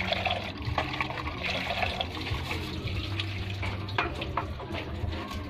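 Water running and splashing, with a few light knocks.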